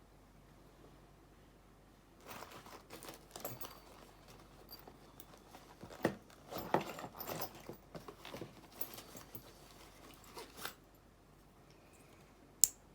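Metal padlock parts handled and knocked together: scattered clicks, rattles and scrapes starting about two seconds in, with one sharp click near the end.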